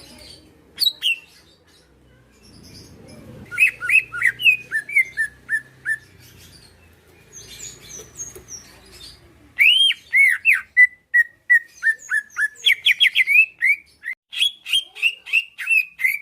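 Green leafbird (cucak ijo) singing in two bursts of quick whistled and chirping notes with a pause between, the second burst a long run of repeated notes.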